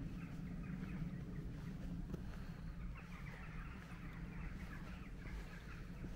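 Outdoor ambience of birds chirping and twittering in the trees over a steady low rumble.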